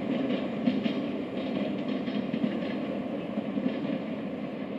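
Train running on elevated tracks: a steady rumble with a quick, uneven clatter of wheels over rail joints, easing slightly near the end as it passes.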